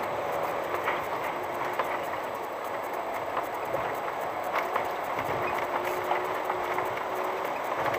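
A VW T5 van heard from inside the cabin, crawling over a rough gravel track: the engine runs low under a steady hum, with tyres crunching on stones and scattered knocks and rattles as the van jolts over the ruts.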